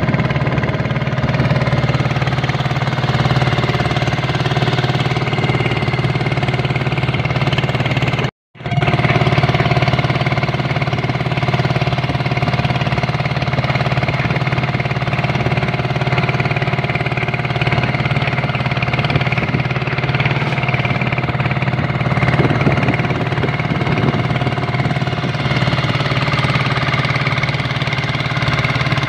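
A small boat's engine running steadily under way, a loud low drone with a rough, chugging edge and water noise over it. The sound drops out completely for a moment about eight seconds in.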